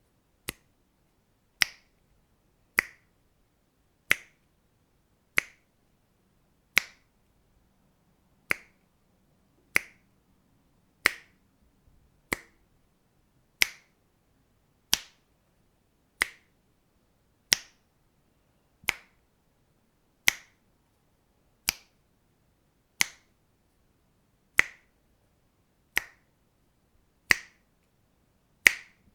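Single finger snaps, one after another at a slow, fairly even pace of about one every second and a quarter, each a sharp click that dies away quickly.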